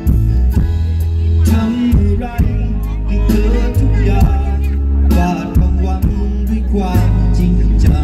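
Live rock band playing a song over a stage PA: drum kit, electric and bass guitars, with a male singer's voice on a handheld microphone during a sound check.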